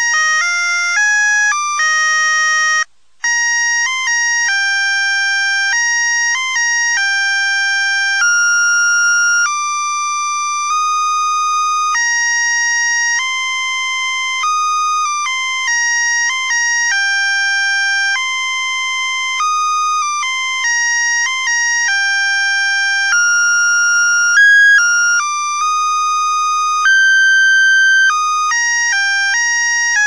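Musical Christmas lights' melody chip playing a tune as a single line of buzzy, high-pitched electronic beeps, one held note at a time, with a brief pause about three seconds in.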